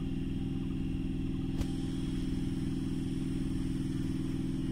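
Indian Railways EMU electric train running slowly past, giving a steady low hum with one sharp click about one and a half seconds in.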